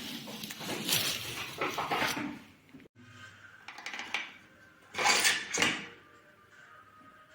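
Unboxing handling noise: packaging and bike parts rustling and scraping, with light metallic clinks. The sound breaks off abruptly just before the three-second mark, resumes more quietly, and has a louder rustle and scrape a little after five seconds.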